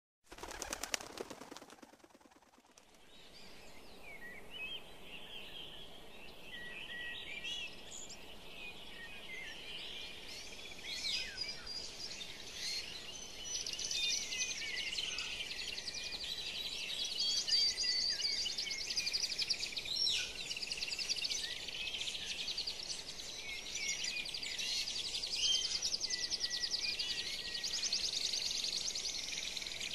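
A dense chorus of high chirping birds, many calls overlapping in quick trills, building up over the first few seconds and then running on steadily. A short burst of noise comes in the first second or two.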